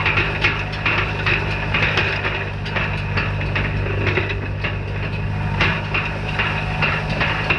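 Tractor engine running steadily while pulling a hay rake, with many irregular clicks and knocks from the rake. Some of the knocking may be the popping that the farmer traces to a faulty rake wheel hub.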